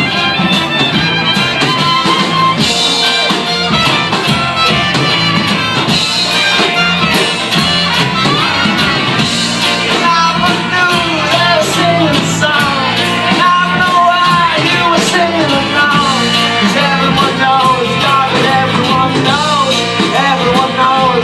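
Live rock band playing an instrumental passage of the song, with a lead line of wavering, bending notes over the full band.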